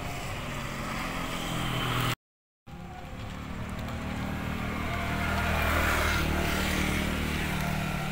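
A motor vehicle engine going by on the street, its sound building to a peak about six seconds in and then easing off. The audio cuts out completely for half a second about two seconds in.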